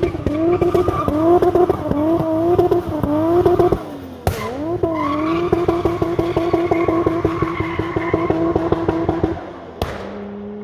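Turbocharged JZ-GTE inline-six in a Nissan 200SX running hard, with dense crackling pops from the anti-lag over the engine note. The revs climb and drop several times in quick succession, then hold steady for several seconds, and fall to a quieter lower note near the end.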